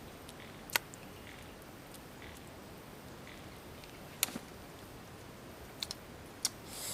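A few sharp clicks and snaps from picking small wild fruits off their stalks and eating them: one a little under a second in, one around four seconds in, and a quick cluster near the end, over a faint steady background hiss.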